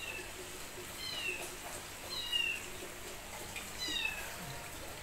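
A kitten mewing: four short, high-pitched mews, each falling in pitch, about a second apart.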